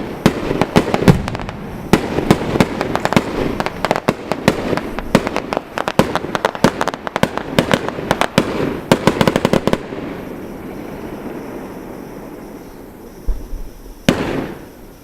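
Bonfire Night fireworks going off: a dense, rapid volley of cracks and bangs for most of the first ten seconds, then a quieter spell of distant rumble, and one more sharp bang near the end.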